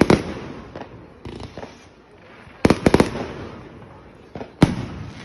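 Fireworks exploding. A loud bang comes at the start, then a quick volley of about four bangs a little before the middle, and another loud bang near the end, with fainter pops and crackle in between.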